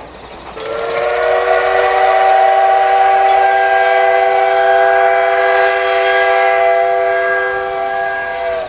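Steam locomotive C12 66's whistle blowing one long blast of about eight seconds, several tones sounding together, sliding up in pitch as it opens and then held steady. It cuts off suddenly near the end.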